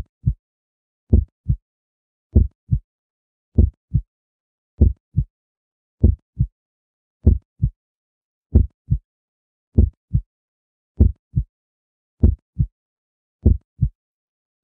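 Heartbeat sound effect: a steady lub-dub, each beat a deep double thump with the first stroke louder, about one beat every 1.2 seconds, with silence between beats.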